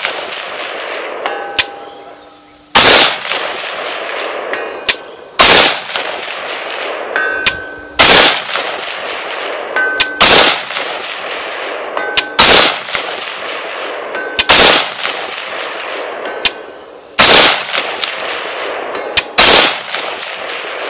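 An ATI Alpha Maxx AR-15 rifle fires .223 rounds: eight single aimed shots about two to three seconds apart, each followed by a long echo. A faint metallic ding comes back after several of the shots.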